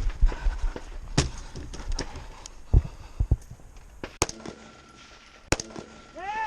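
AR-15 carbine firing single shots at irregular intervals, some in quick pairs, during a run through a competition stage.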